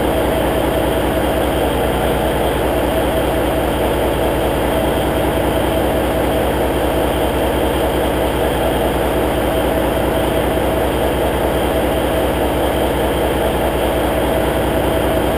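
Cummins N14 inline-six diesel in a semi tractor idling steadily, warming up after a cold start.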